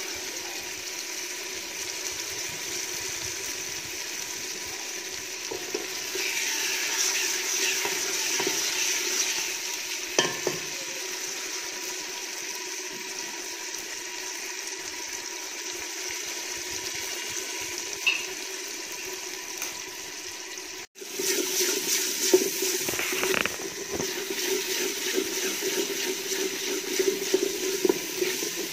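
Chopped tomato and onion sizzling steadily in hot oil in an aluminium pot, stirred with a wooden spoon that scrapes and now and then knocks against the pot. After a brief dropout about two-thirds through, the sizzling is louder and the scraping busier.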